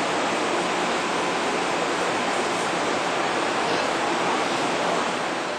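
Diesel locomotive idling close by: a steady, loud rushing hiss with little deep rumble.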